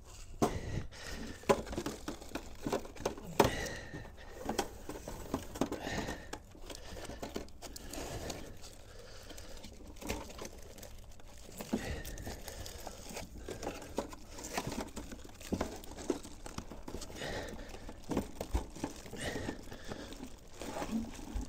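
Plastic wrapping crinkling and foam packing rustling as items are handled and pulled out of a packed case, with irregular sharp clicks and knocks.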